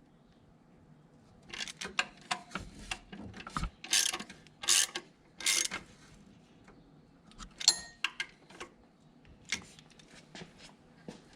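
Ratchet wrench with a 10 mm socket clicking in short bursts of strokes as the power steering pump's mounting bolts are tightened to the engine block. A brief metallic ring comes about two-thirds of the way in.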